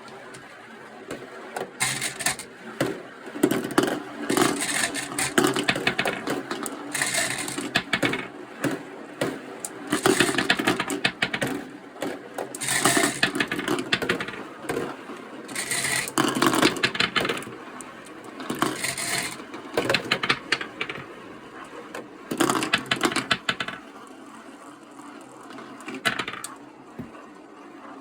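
Marbles rolling and clacking down a plastic marble-run slope track, in rattling, clicking runs of a second or two that come every few seconds.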